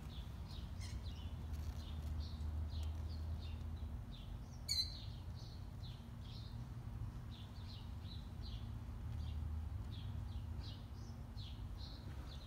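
Small birds chirping over and over, short high chirps a few times a second, with one louder, sharper note about five seconds in, over a steady low rumble.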